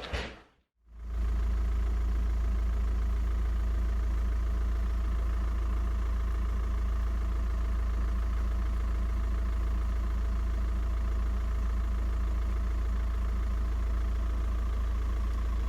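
Steady engine and road rumble of a car being driven, heard from inside, with a deep, even drone that starts just after a moment of silence about a second in.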